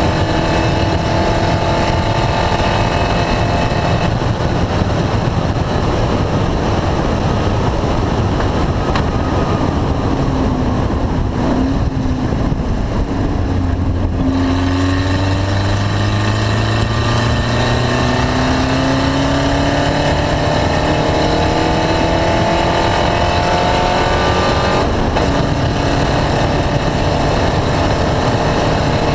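Car engine being driven hard: its pitch falls for several seconds as it slows, then climbs steadily for about ten seconds under acceleration, with an abrupt change in the engine note near the end.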